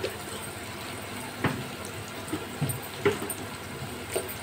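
Steady sizzle of sliced onions frying in plenty of hot oil in a pressure cooker, with three light knocks about a second and a half apart.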